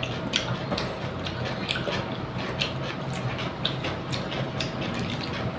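Fingers mixing rice with mustard hilsa curry on a plate: irregular small clicks and taps, several a second, over a steady background hiss.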